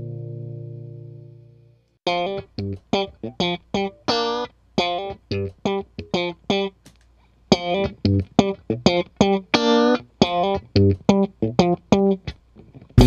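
Clean electric guitar (Xotic XS-1 Strat) through a Dr. Z Maz 18 tube amp and an Effectrode PC-2A photo-optical tube compressor pedal. A held chord fades away, then short, clipped picked notes and chord stabs come about three a second, with a brief pause midway.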